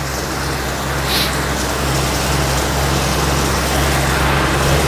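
Air bike (fan bike) fan whirring steadily as it is pedalled and pushed hard, growing slowly louder during a final sprint.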